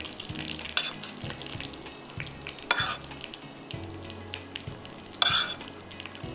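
Chopped onions sizzling in hot oil in a pan, frying fast enough to redden. A few clinks of a metal spoon against a ceramic bowl stand out over the sizzle, the longest just after five seconds in.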